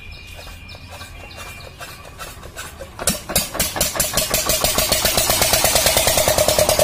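Single-cylinder diesel water-pump engine being hand-cranked: quiet, quickening turns for about three seconds, then it catches with a loud first firing. It settles into a fast, even chugging that grows louder as it picks up speed.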